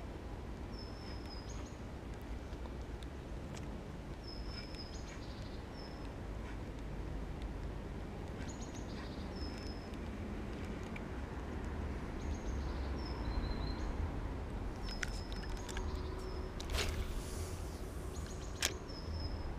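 A bird repeatedly gives short, high whistled calls, roughly one every one to two seconds, over a steady low rumble. Near the end comes a brief swish and a few sharp clicks.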